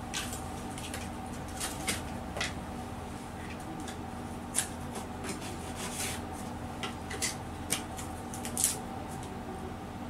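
Irregular small clicks, taps and rustles as a phone and its nano-glass screen protector and packaging are handled on a shop counter, over a steady low hum.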